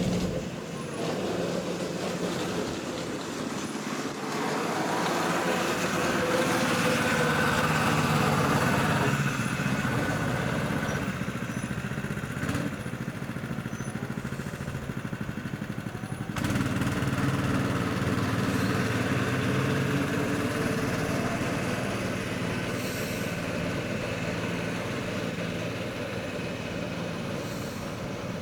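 Small go-kart engines running, their pitch rising and falling. The sound changes abruptly about sixteen seconds in.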